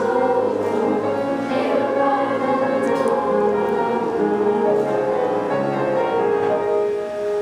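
Treble choir of young voices singing in harmony, moving into long held notes near the end, typical of the song's closing chord.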